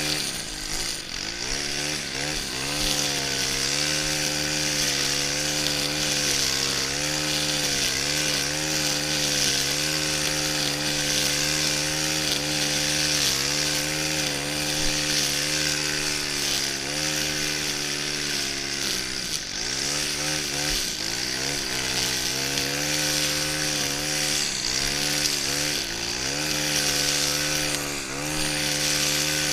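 Stihl FS 131 brushcutter's 36 cc 4-MIX engine running at high throttle while trimming grass, a steady high engine note with a hiss over it. The pitch dips briefly as the throttle eases about a second in, twice around the middle, and near the end.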